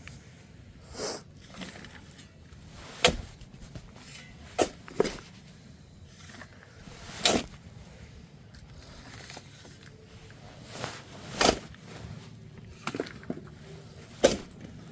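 Irregular sharp knocks and short scrapes, about one every second or two, from work cleaning the walls of an open trench in a concrete floor.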